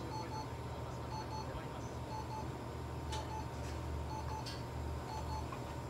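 Medical laser therapy unit beeping in quick pairs of short electronic tones, about once a second, over a steady low machine hum while its red-glowing handpiece is held over the cat.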